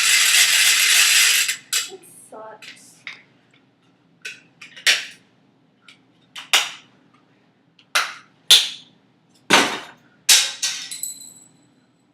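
A loud hissing burst of noise lasting about a second and a half, then a string of about eight sharp cracks at uneven intervals, like cap-gun shots or hard strikes.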